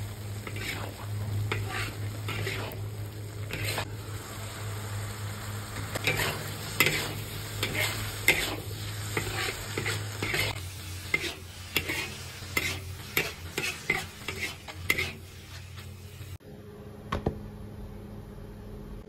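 Spatula stirring and tossing ground meat with diced carrots, peas and corn in a hot wok over a steady sizzle. From about six seconds in, the spatula scrapes the pan in a quick run of sharp strokes, about two a second. The sizzle stops abruptly near the end.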